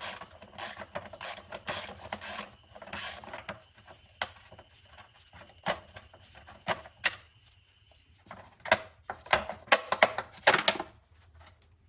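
Socket wrench and bolts clicking and clinking against metal while the engine cover bolts are taken out, in irregular runs of sharp clicks, loudest near the end.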